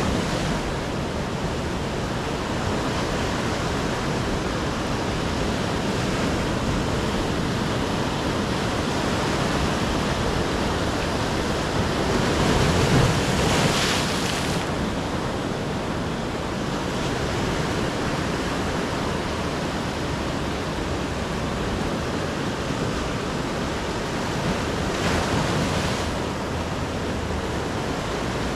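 Ocean surf breaking on the shore, a steady wash of waves with one louder break about halfway through and a smaller one near the end.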